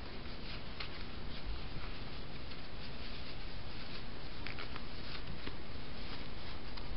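Stiff vinyl test pieces being handled and folded in the hands: light rustling and crinkling with a few scattered soft clicks over a steady hiss.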